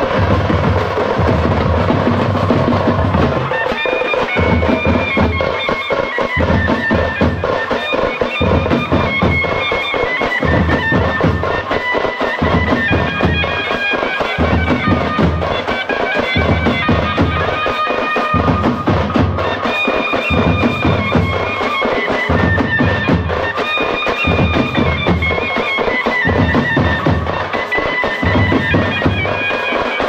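Music: a wind-instrument melody over a held drone and a steady drum beat.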